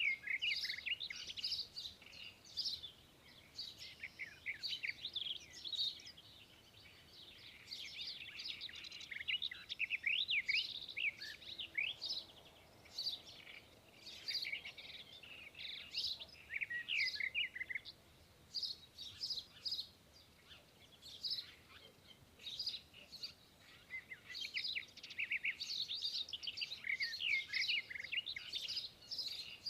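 Several small birds chirping and twittering. The rapid, short, high notes overlap in busy stretches, with brief quieter lulls between them.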